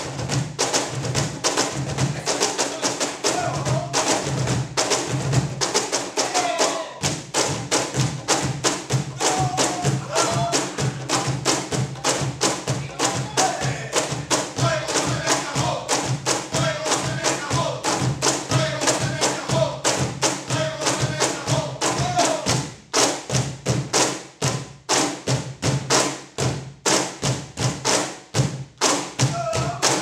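Four Peruvian cajones played together, hands slapping the wooden box drums in a fast, steady groove of deep thumps and sharp slaps. About 23 seconds in, the pattern opens up into sparser, punctuated hits with short gaps between them.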